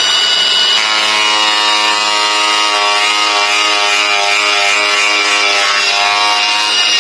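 Angle grinder running steadily with a high whine as it cuts into a fibreglass car spoiler. About a second in, a lower, more tonal note joins as the disc bites into the fibreglass.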